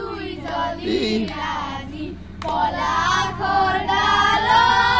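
A group of children singing a Holi song together, getting louder and fuller about two and a half seconds in.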